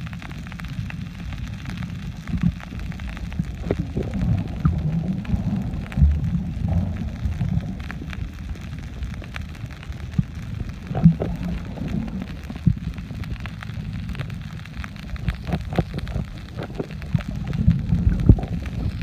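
Underwater sound picked up by a camera held in the sea while snorkelling: a muffled low rumble of moving water, with scattered clicks and crackles.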